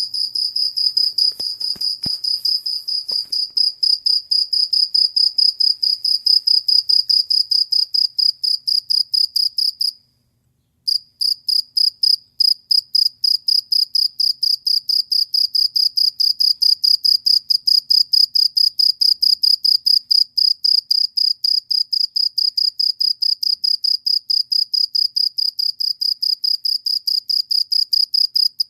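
A cricket chirping: a loud, high-pitched run of short, evenly spaced pulses at about four a second. It breaks off for about a second a third of the way through, then starts again.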